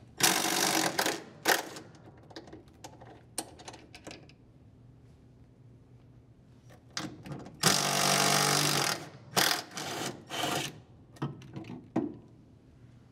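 Cordless drill with a socket backing out the half-inch bolts that hold a washer's drive motor to the transmission. It runs for about a second at the start, and again for just over a second about eight seconds in, followed by a few short bursts. Light clicks and knocks come between the runs.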